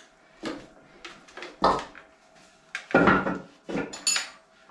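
Loose wooden boards being handled and set down, giving a few separate knocks and clunks of wood about a second apart.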